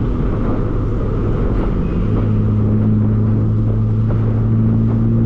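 Sports car engine and road noise heard inside the cabin while driving: a steady low rumble under a constant engine hum, which grows stronger and holds one pitch from about two seconds in.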